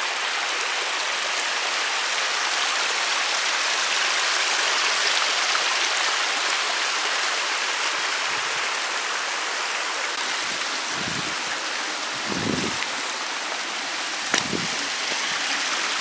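A small woodland stream running over stones, a steady rush and splash of water. A few soft low thumps come in the second half.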